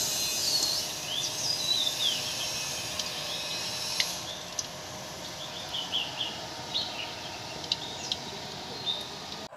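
Birds chirping repeatedly over a steady high hiss, which fades about four seconds in; a few sharp clicks.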